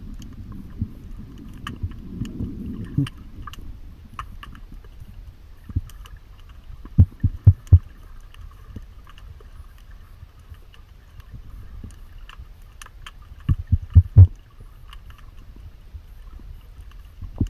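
Low rumbling noise with scattered faint clicks, broken twice by a quick group of four heavy, low thumps, about seven seconds in and again about fourteen seconds in.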